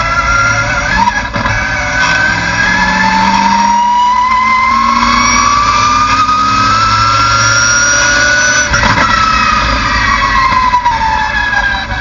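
Super Unlimited Mustang race car's engine heard from inside the cockpit, accelerating in fourth gear with its pitch rising steadily for about seven seconds. Then the throttle comes off and the pitch falls as the car slows.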